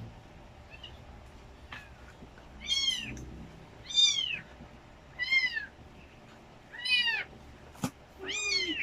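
Three-week-old kitten meowing: five high, arching cries, each about half a second long, coming every second and a half or so, with a sharp click between the last two.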